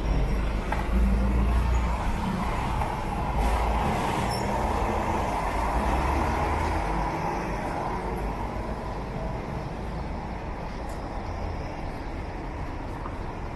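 Road traffic on a city street, with a strong low rumble from a small box truck passing close alongside through the first half; it eases after about seven seconds into softer, steady traffic noise.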